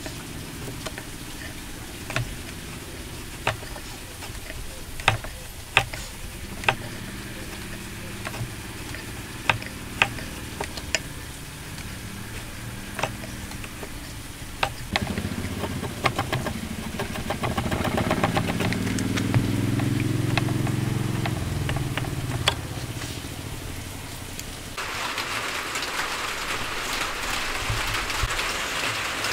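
Hand chisel paring end grain of a wooden joint: a series of sharp clicks and scrapes as shavings are sliced off. About halfway through, an engine runs in the background, swelling and fading over several seconds. Near the end the sound changes to a steady hiss like rain.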